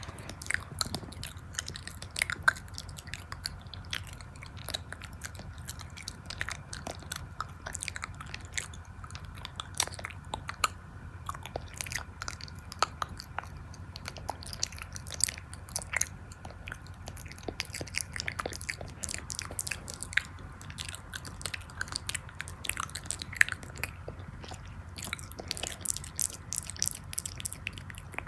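Eating ASMR: someone biting and chewing crunchy food, a dense, irregular run of crisp crunches over a steady low hum.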